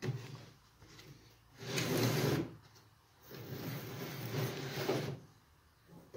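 Wooden router-table fence slid across the plywood tabletop, wood rubbing on wood in two strokes, the first about a second long and the second nearly two seconds.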